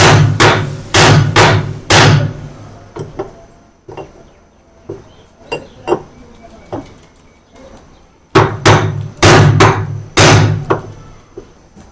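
Hammer driving a steel chisel into a rusted nut on a washing machine's gearbox shaft, to crack the seized nut apart. Sharp metal strikes about two a second, a few lighter taps in the middle, then another run of about six hard strikes near the end.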